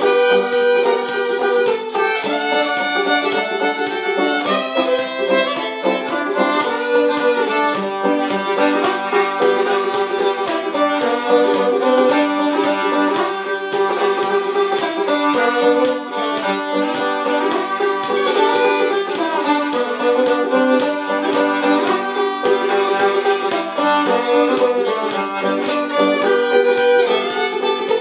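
Old-time fiddle and banjo duet: a bowed fiddle carries the melody over a plucked banjo, playing without a break.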